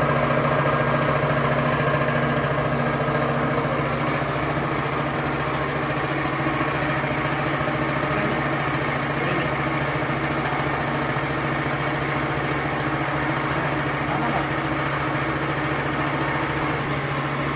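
Electric motor of a centrifugal oil-draining spinner running, a steady hum with no change in speed.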